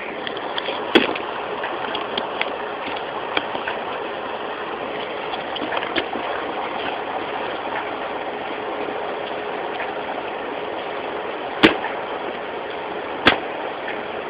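A steady rushing background noise, broken by three sharp knocks: one about a second in and two close together near the end.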